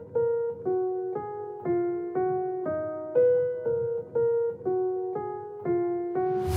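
Background music: a piano playing a slow melody of single notes, about two a second, each fading before the next.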